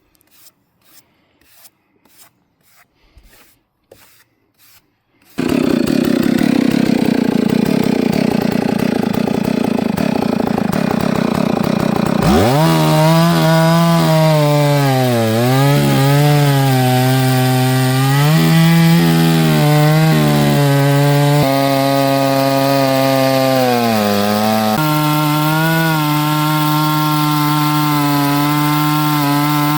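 Chainsaw mounted in an Alaskan chainsaw mill, running under load as it rips a log lengthwise into planks; its engine note wavers up and down through the cut. It opens with a few seconds of faint regular ticking, and the saw comes in suddenly and loud about five seconds in.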